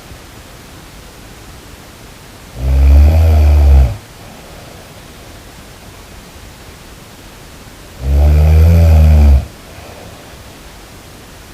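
A person snoring: two long, loud snores about five and a half seconds apart, each a low rumble lasting over a second, over a steady hiss.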